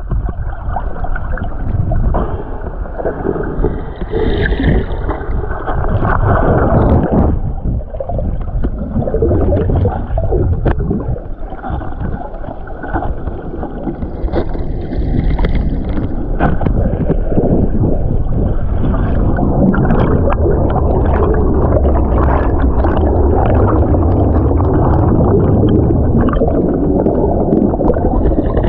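Water of a waterfall churning and gurgling, heard muffled and deep as through an underwater camera, with surges that grow steadier and fuller toward the end.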